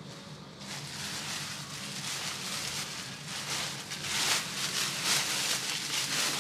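Rustling and shuffling of belongings being handled and sorted, growing louder about four seconds in, over a steady low hum.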